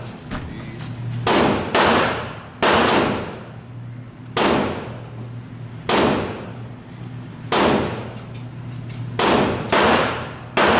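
Gunshots from other shooters at an indoor range: about nine sharp reports at irregular intervals, two of them close together near the end, each ringing out in the room's echo.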